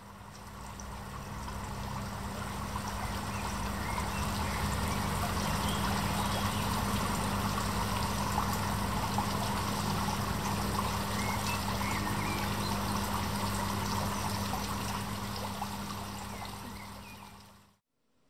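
Running water like a flowing stream, fading in over the first few seconds and fading out near the end, with a steady low hum underneath.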